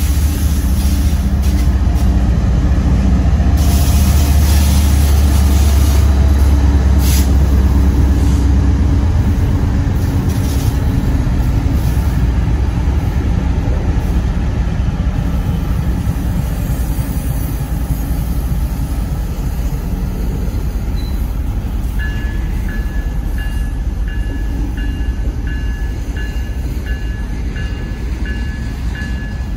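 A train rolling by, with a heavy low engine rumble that eases after about nine seconds into steady rail noise. About two-thirds of the way through, a bell starts ringing steadily, a little more than once a second.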